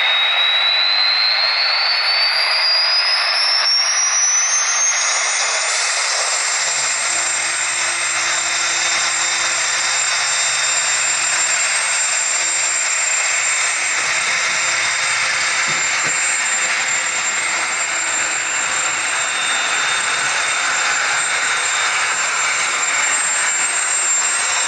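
Simulated gas-turbine sound from the sound-equipped HO model RTG turbotrains: a turbine whine rising for about six seconds as it spools up, then holding at a steady high pitch over a rushing hiss. A lower steady hum joins about seven seconds in.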